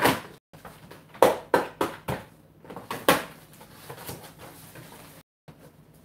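Rummaging in and opening a cardboard box of clothes: a string of short knocks and rustles, the sharpest about a second in and again about three seconds in, with the sound cutting out to dead silence twice for a moment.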